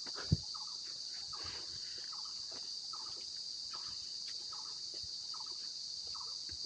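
Forest chorus: a steady high-pitched insect drone, with short bird calls repeating about once a second over it. A single thump sounds about a third of a second in.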